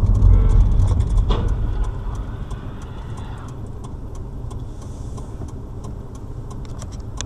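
Steady low rumble of a car's engine and road noise, heard from inside the cabin of the moving car, loudest in the first second or so, with faint light clicks.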